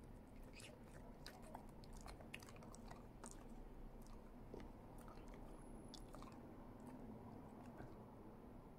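Dog chewing a training treat: faint crunchy clicks, busiest in the first few seconds, then thinning out.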